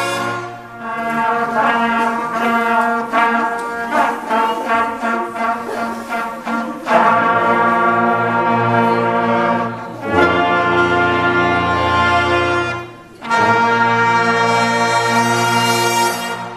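Beginner brass ensemble of trumpets with a trombone and a baritone horn, played by students after about a month of lessons. It plays a passage of short detached notes, then long held chords with short breaks between phrases.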